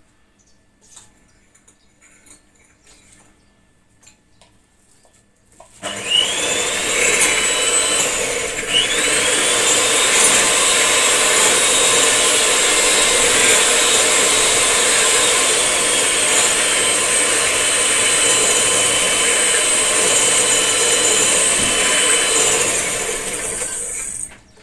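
Electric hand mixer beating cake batter in a bowl: a steady motor whine with the beaters churning. It switches on about six seconds in after a few faint clicks, dips briefly a few seconds later, and cuts off near the end.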